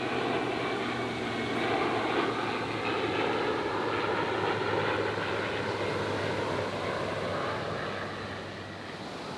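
Aircraft engines as a plane flies past, a steady hum that swells and then fades near the end.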